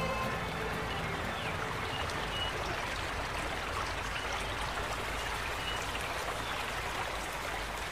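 Steady rushing outdoor ambience, like a stream running, with a few faint short chirps.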